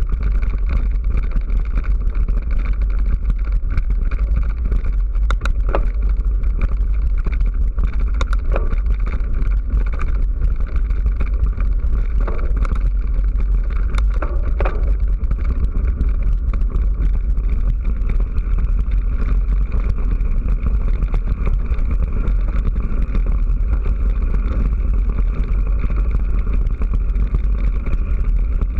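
Steady rumble of wind and movement on a moving action camera travelling along a gravel track, with a few short clicks or knocks in the first half.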